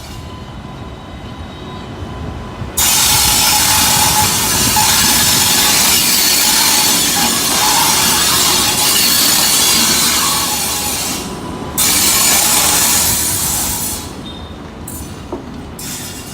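Express passenger train hauled by a WAP-7 electric locomotive running past at speed: a low rumble, then about three seconds in a sudden loud rush of wheels and air with clickety-clack on the rails, dipping briefly, and falling back to a rumble near the end.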